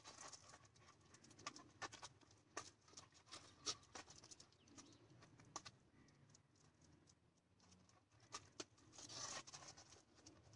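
Faint, irregular clicks and ticks of a flirt-pole lure slapping and dragging on asphalt and a dog's claws running after it, with a short hiss about nine seconds in.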